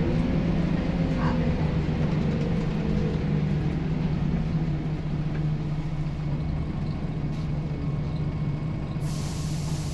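Scania L94UB single-decker bus engine and driveline droning steadily, heard from the back seat inside the bus. A whine slowly falls in pitch over the first few seconds, and a hiss comes in near the end.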